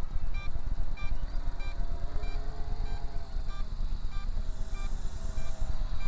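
MJX Bugs 3 quadcopter's brushless motors and propellers humming in flight, the pitch drifting as the throttle changes, over a heavy low rumble. A short electronic beep repeats about every two-thirds of a second.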